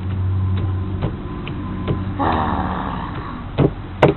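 Hammer blows finishing off a smashed giant tomato: a few separate, irregular knocks, the loudest near the end, over a steady low hum.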